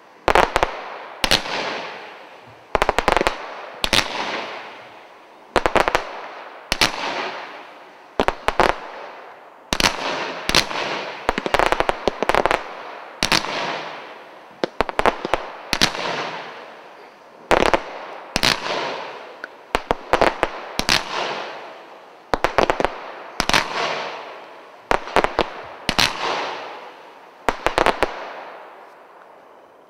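A 120-shot fanned golden waterfall firework cake firing: clusters of sharp reports about every second or so, each trailing off in a fading hiss. The shots stop near the end.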